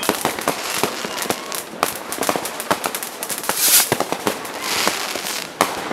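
New Year's Eve fireworks and firecrackers going off across a city: a dense, irregular rattle of bangs and cracks, with one louder rushing burst a little past halfway.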